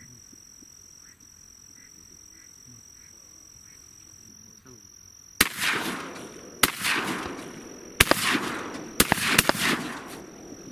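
A volley of about six 12-gauge shotgun shots from several hunters, starting about halfway through, spaced roughly a second apart at first, then three in quick succession near the end, each echoing away. Before the shooting, faint duck quacks and a steady high insect whine.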